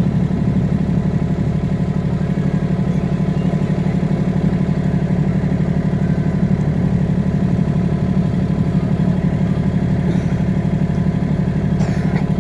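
A motorboat's engine running steadily as the boat cruises, a low, even drone with a fast pulse.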